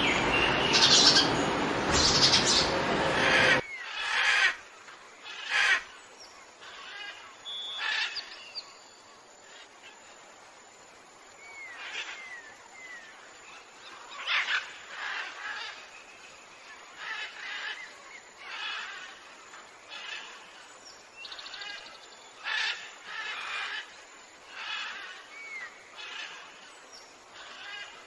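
Birds calling: short chirps and calls repeated about once a second, with a few brief curved whistles. They come after a loud, dense wash of sound that cuts off abruptly about four seconds in.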